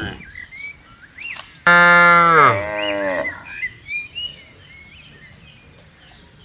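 A cow moos once, about two seconds in, a loud call of about a second and a half whose pitch drops at the end. A few faint high chirps sound around it.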